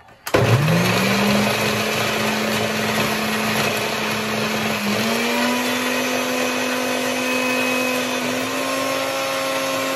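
Electric mixer grinder blending chikoo and warm water into puree. The motor starts a moment in and rises in pitch to full speed within about a second. It then runs steadily, with a brief dip in pitch about five seconds in.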